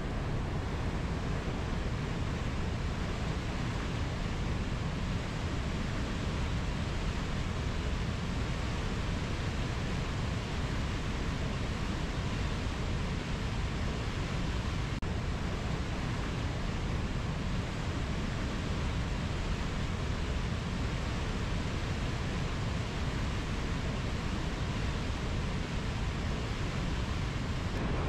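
Mountain river flowing over low rapids: a steady, unbroken rush of water, heaviest in the low end.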